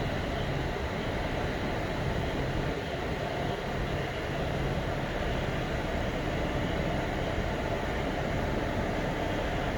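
ICF passenger coaches running along the track: a steady rumble of steel wheels on rail.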